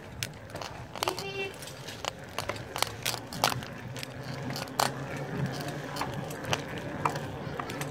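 Bicycle being ridden over concrete, with irregular clicks and rattles from its parts.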